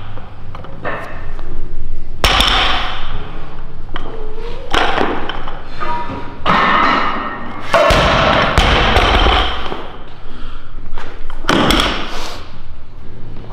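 Loaded barbell with rubber bumper plates thudding down on a wooden lifting platform several times during snatch lift-offs and a full snatch.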